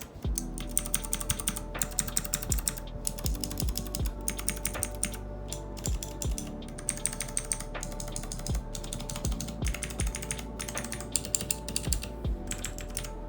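Typing demonstration on a Machenike K500 mechanical keyboard fitted with new keycaps: a fast, continuous stream of key clacks with brief pauses.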